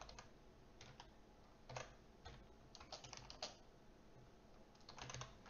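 Faint computer keyboard typing: short runs of keystrokes separated by brief pauses.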